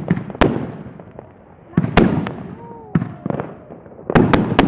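New Year's fireworks going off: sharp bangs and pops at irregular intervals, with a quick run of three loud bangs near the end.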